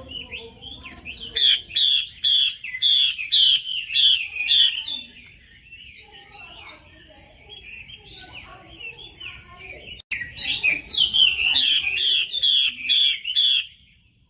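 Female Chinese hwamei singing loudly. It gives two runs of quick, loud, repeated notes, about three a second, each lasting about three seconds. Softer twittering and chattering fills the gap between the runs.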